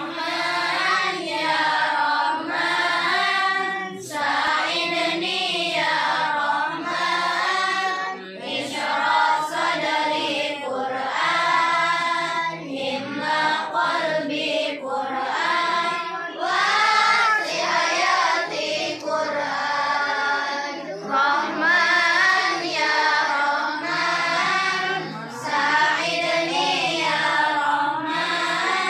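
A group of children singing sholawat, Islamic devotional songs in praise of the Prophet, together as a choir. The singing runs on with brief pauses between phrases.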